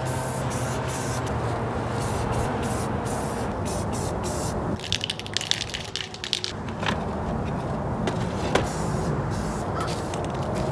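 Aerosol spray can of black paint hissing in repeated short bursts as a first, very light coat is dusted onto grille pieces, over a steady low rumble.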